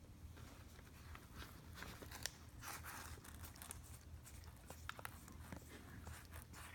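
Faint rustling and scattered small clicks from a cat shifting about and licking at a person's hand, over a low steady hum.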